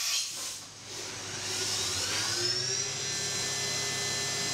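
CNC milling machine running, its spindle whine rising in pitch over a second or two and then holding steady, over a steady hiss.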